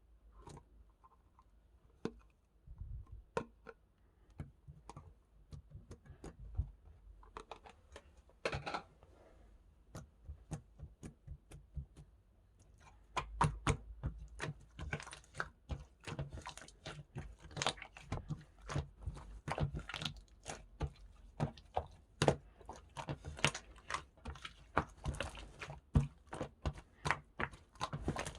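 Slime being squeezed and poked by hand, giving sticky clicks and pops, sparse at first and coming thick and fast, several a second, from about halfway.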